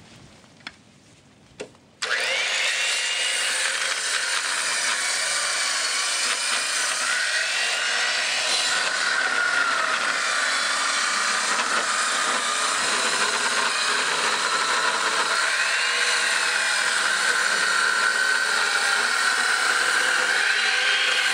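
Corded circular saw starting suddenly about two seconds in and ripping lengthwise through a thick redwood slab, running steadily to the end with a whine that wavers up and down a few times. Two small clicks come just before it starts.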